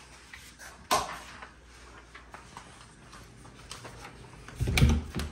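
A sharp click about a second in, faint ticks and handling noise, then a louder thump and knock near the end as a small wooden cabinet door is pulled open.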